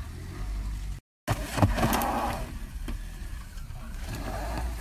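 Car engine running and revving as the stuck car is worked free, over a steady low rumble; the sound drops out briefly about a second in, then grows louder for about a second.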